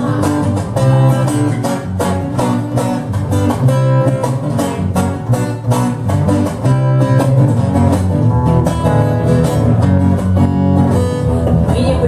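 Instrumental break of a song: a steel-string acoustic guitar strummed steadily over an electric bass guitar playing the low notes.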